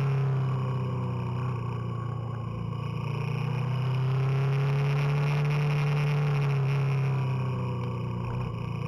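Motorcycle engine running under way, its pitch falling and then rising again with the throttle, easing off briefly about a second in and again near the end.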